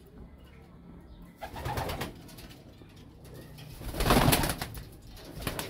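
Homing pigeons in a wire loft: wings clattering in two flurries, the louder one about four seconds in as a pigeon flies close by, with low cooing in between.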